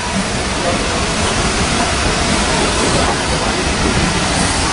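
Steady, loud hiss of steam escaping from a steam locomotive standing with its train, over a low rumble.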